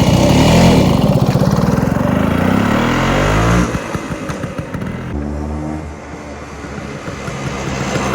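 1979 Vespa P200E scooter's two-stroke single-cylinder engine revving up. It climbs in pitch for about three and a half seconds, drops back, then climbs again near the end.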